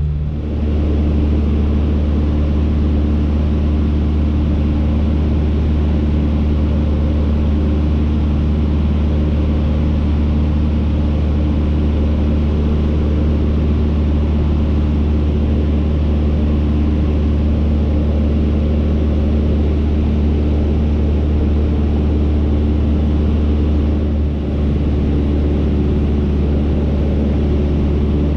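Cessna 152's four-cylinder Lycoming engine and propeller droning steadily in cruise, heard from inside the cockpit. The loudness dips briefly twice, just after the start and about 24 seconds in.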